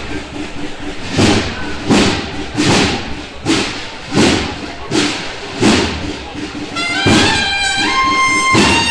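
A cornet-and-drum band (banda de cornetas y tambores) opening a march: the drums beat a steady pulse, about one strike every three quarters of a second, and the cornets (valveless bugles) come in about seven seconds in with held notes over the drums.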